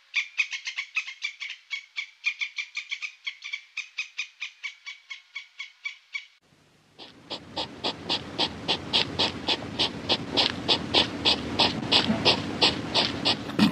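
Rapid repeated animal calls, about five short notes a second, for some six seconds. After a brief gap, a second series of pulsed calls, about four a second, over a steady background rumble.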